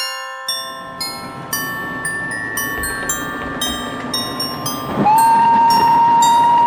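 Chime-like Christmas music plays over the rumble of a train running. About five seconds in, a steam locomotive whistle comes in with a short upward slide, then holds one long, loud, steady note.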